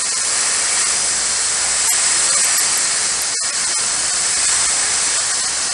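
Compressed air hissing steadily from an air hose, blowing sanding residue and leather particles off a freshly scuffed leather cue tip before it is glued on.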